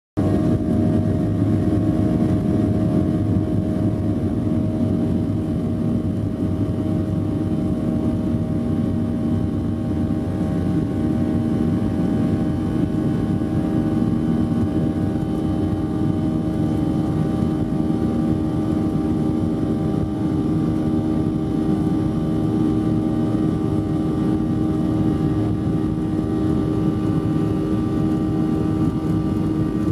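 Airliner cabin noise while taxiing, heard from a window seat: the jet engines run steadily, a constant hum with several steady tones over a low rush that does not build.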